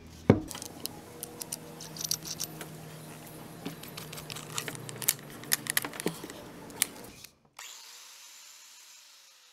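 Clicks and metallic clinks of a diamond hole saw and its M14-to-5/8 adapter being handled and screwed onto an angle grinder's spindle, over a steady low hum. The sound drops away about seven seconds in.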